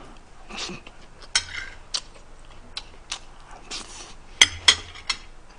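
Metal spoon and fork clinking and scraping against ceramic plates as food is scooped up: a handful of sharp clinks, the two loudest close together about four and a half seconds in.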